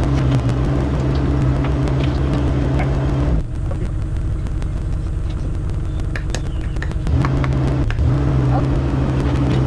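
Mini excavator's engine running with a steady low hum. The note drops in level about a third of the way in and picks back up about two-thirds in, with light clicks and knocks over it.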